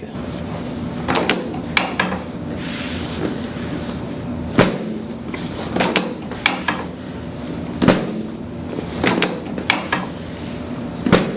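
About ten sharp clicks and knocks, irregularly spaced, from a chiropractic adjustment on the treatment table aimed at bringing the sacrum back to midline.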